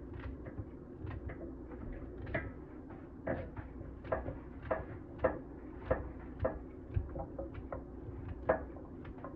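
A carrot being sliced by hand with a serrated knife over a pan, the rounds dropping into it: about a dozen short clicks, one every half second or so, over a steady low hum.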